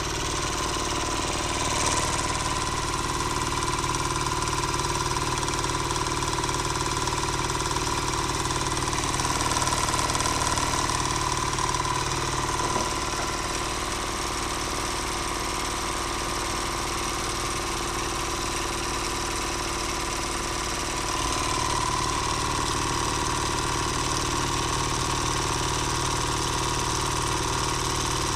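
Homemade twin-cylinder Stirling engine running steadily on its gas burner, a continuous mechanical hum with a steady whine in it. The sound shifts slightly about 13 seconds in and again about 21 seconds in.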